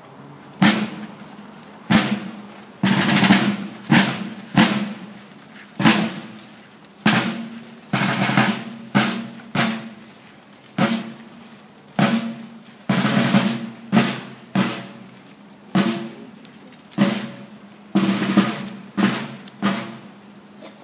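Field drums beating a marching cadence: sharp strokes, many of them drawn out into short rolls, about one accented beat a second.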